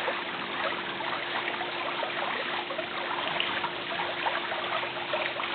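Steady rushing noise like running water, with a faint steady hum underneath.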